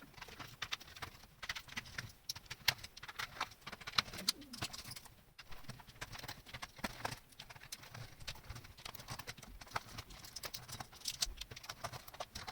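Irregular small clicks and ticks of a screwdriver turning tiny screws out of a Commodore C64 keyboard and the screws being set down.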